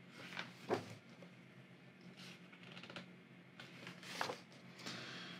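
Pages of a large hardcover art book being turned by hand. It gives a few soft paper swishes and rustles, the sharpest just under a second in.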